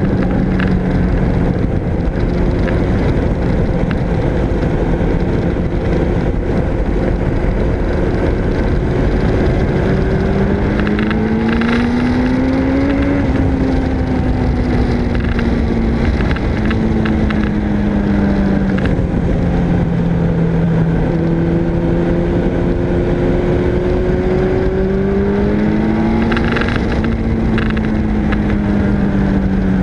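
Suzuki Hayabusa's inline-four engine under way at road speed, its note climbing and easing off with the throttle, rising most clearly about ten to thirteen seconds in and again near twenty-five seconds in. Heavy wind rush over the microphone.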